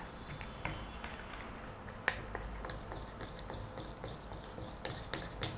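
Faint scattered clicks and scrapes of a plastic spatula stirring thickening cornstarch-and-water oobleck in a plastic cup, with one sharper click about two seconds in.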